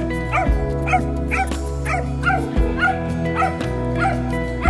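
Background music with steady held notes and a beat of short, high, swooping notes about twice a second.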